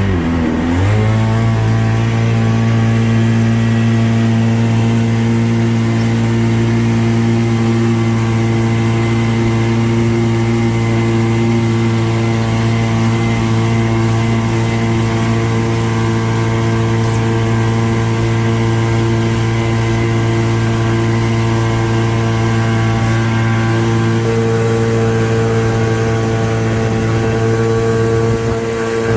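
Boat engine running at steady revs. Its pitch drops in the first second, then holds constant.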